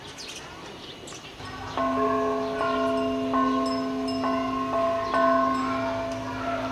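Metal bells struck about once a second, each stroke ringing on in several sustained tones that overlap the next, starting about a second and a half in.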